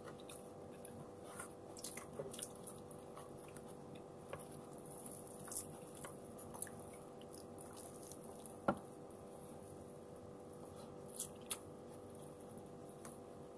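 Faint close-up eating sounds: chewing and mouth noises with small scattered clicks as fingers pick rice and fish from a plate, one sharper click about two-thirds of the way through, over a steady low hum.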